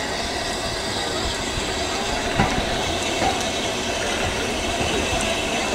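Metropolitan Railway E class No. 1, an 0-4-4 steam tank locomotive, rolling slowly toward the listener with a steady hiss and rumble. There is a single clank about two and a half seconds in.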